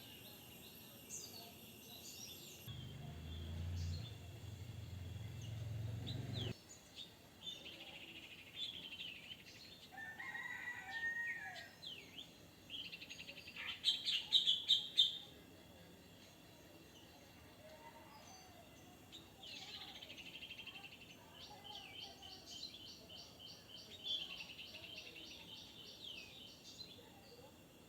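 Birds chirping and calling again and again, loudest in a flurry of calls about fourteen seconds in. A low hum runs under the calls for a few seconds near the start.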